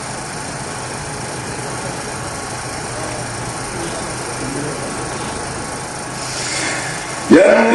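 Steady background hiss with a low hum during a pause in Quran recitation. About seven seconds in, the reciter's voice comes in loudly, gliding upward in pitch into a held, melodic chanted phrase.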